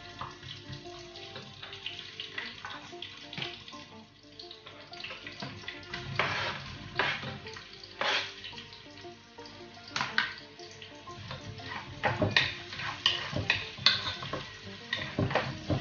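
Background music over cooking sounds: food sizzling in a pot while a wooden spoon stirs and scrapes in it, and a knife slicing a red onion on a plastic cutting board, with repeated clicks and knocks, busier in the second half.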